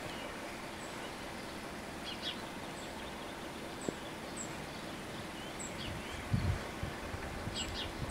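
Steady outdoor background noise with small birds chirping now and then in short, high notes. A gust of wind hits the microphone about six seconds in.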